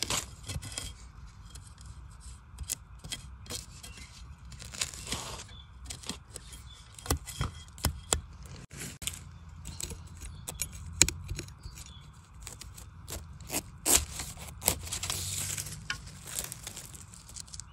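Dry bamboo leaves and twigs rustling, crackling and snapping, with scraping, as someone works in a bamboo clump to gather a bamboo shoot. There are many sharp cracks and two longer spells of rustling, about five seconds in and again toward the end.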